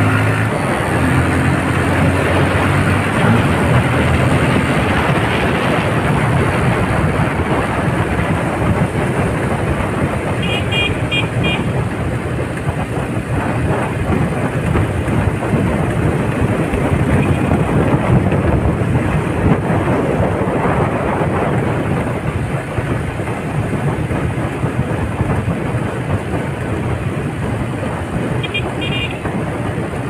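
Steady rush of wind and engine noise from travelling along a road at riding speed. Two short runs of quick high beeps come about ten seconds in and near the end.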